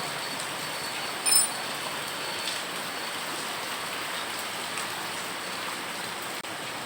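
A steady hiss of noise, with a brief high-pitched ring about a second and a half in.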